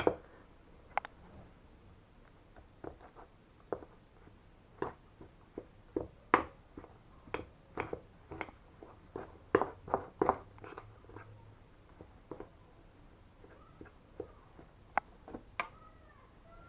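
Metal utensil stirring and tapping against a ceramic bowl while mixing ground oatmeal with boiled water into a stiff bait dough. The clinks are short and irregular, one or two a second, loudest around the middle.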